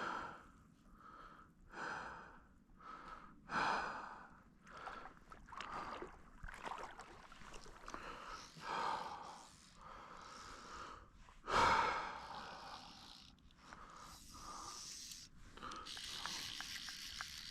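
A man breathing hard and gasping, a breath every second or two, from the strain and excitement of playing a large trout on a fly rod. One breath or burst about two thirds of the way through is much louder than the rest.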